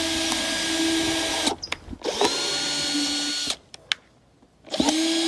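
Power drill boring small airflow holes into the bottom of a redwood box. It runs in three spells: it stops about a second and a half in, runs again for about a second around the middle, and starts once more near the end, spinning up to speed each time.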